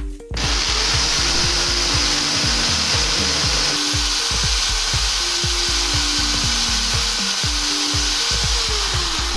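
Corded electric drill running steadily with a ceramic-and-glass bit, grinding through a pane of glass submerged in water; the drill starts a moment in.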